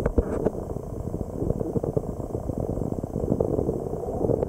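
Muffled, churning water noise heard through a camera microphone held underwater, with a few knocks in the first half second.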